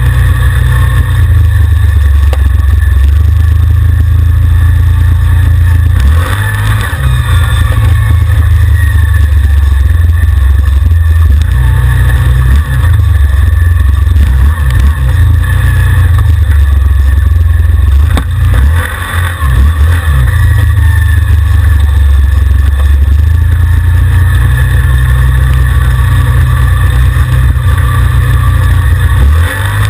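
ATV engine running loud under throttle while the quad is ridden along a rough, muddy trail. The pitch shifts as the throttle changes, with brief let-offs about six seconds in, around thirteen seconds and around nineteen seconds.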